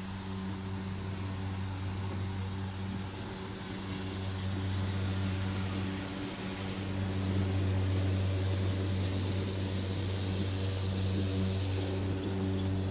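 Lawn mower engine running at a steady speed with a constant hum and a hiss of cutting, growing louder about halfway through.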